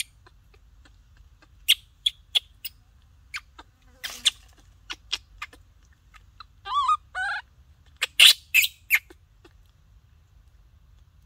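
Baby macaque giving two short squeaky calls a little past halfway, among a scatter of sharp clicks and smacks close by.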